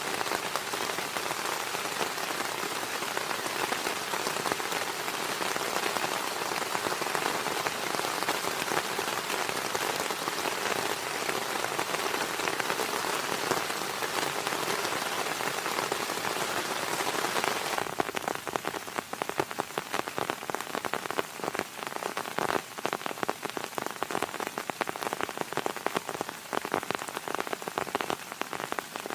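Heavy rain falling hard in a dense, steady rush. About two-thirds of the way in, the rush thins and separate drops striking the surface stand out as a rapid irregular patter.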